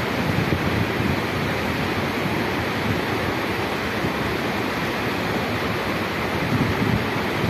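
Wind buffeting a phone's microphone: a steady rushing with gusty low rumbles that pick up near the end.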